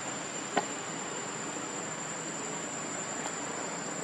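Steady high-pitched insect drone over an even background hiss, with a single sharp click about half a second in.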